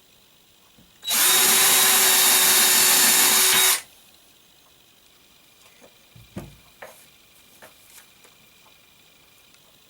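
Electric drill running in one steady burst of about three seconds, starting and stopping abruptly, followed by a few light knocks and taps.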